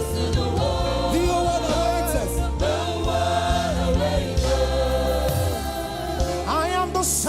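Gospel choir singing with a live band: held vocal lines over steady bass and keyboards, with cymbal hits.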